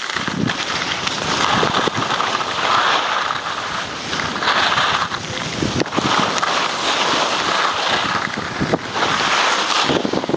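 Skis hissing and scraping over hard-packed snow, swelling and fading turn after turn, with wind rushing over the microphone.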